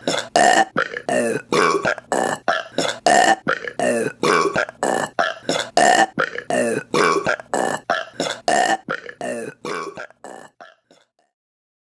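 A rapid run of a woman's short, pitched burps, about three a second, growing fainter toward the end and stopping about eleven seconds in.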